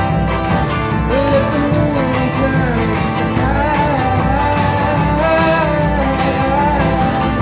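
Live acoustic folk-rock performance: a strummed acoustic guitar and a male singing voice over a steady beat struck on a drum.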